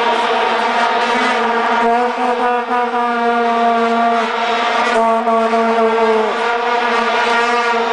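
Plastic vuvuzela blown close by: a loud, steady buzzing drone held on one note, with a stack of overtones, its pitch sagging briefly about six seconds in. Other vuvuzelas drone slightly off-pitch behind it.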